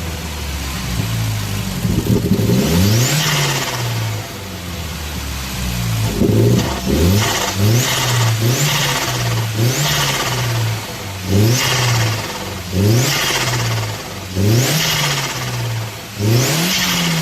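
Turbocharged Audi A3 engine free-revved in repeated short blips, its pitch rising and falling every second or two, with a high rising whistle on many of the blips; it is being revved to test for turbo flutter on lift-off.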